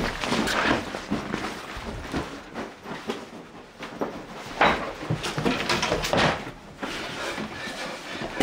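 Irregular bumps, knocks and rustling of cupboards and drawers being rummaged through and their contents pushed about, as a flat is ransacked, with one sharper knock about halfway through.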